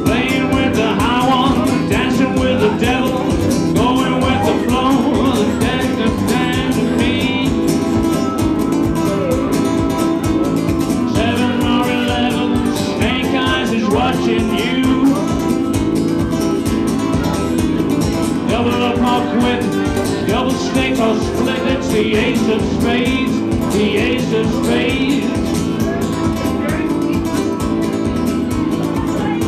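Live music: a nylon-string guitar strummed in a driving rhythm over a steady beat stamped out on a wooden stomp box.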